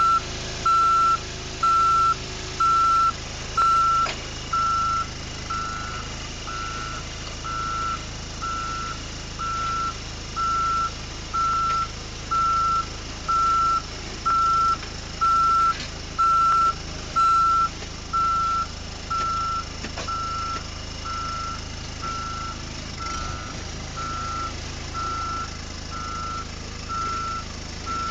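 Backup alarm of a heavy vehicle reversing: a steady single-pitch beep repeating a little faster than once a second, over the steady hum of its diesel engine.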